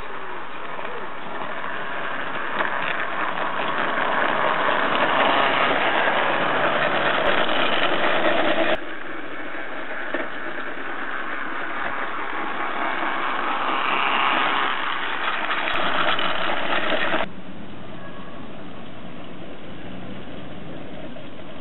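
A 16mm-scale narrow-gauge model locomotive and its wagons running along garden-railway track. The wheels on the rails and the running gear make a steady clatter that grows louder as the train comes near, then cuts off suddenly, twice.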